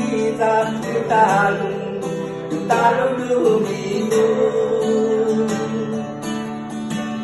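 Acoustic guitar strummed and picked live, with a voice singing along and holding a long, wavering note a few seconds in.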